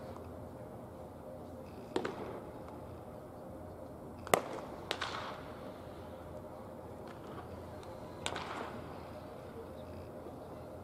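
Baseball batting practice: a sharp crack of a wooden bat meeting a pitched ball a little over four seconds in, the loudest sound, with softer knocks of the ball about two seconds and eight seconds in.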